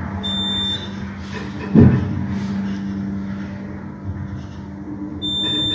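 Traction elevator car going up its shaft, its drive giving a steady low hum. A short high electronic beep sounds about a third of a second in and again near the end, and a dull thump comes a little under two seconds in.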